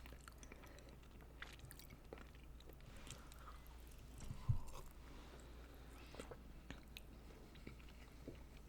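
Faint close-miked chewing of soft, sticky Indian sweets, with small wet mouth clicks. A single low thump comes about four and a half seconds in.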